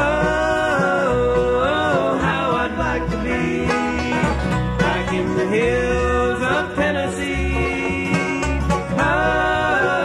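Bluegrass band playing an instrumental break between verses: banjo and guitar over a bass line, with a lead melody sliding between notes.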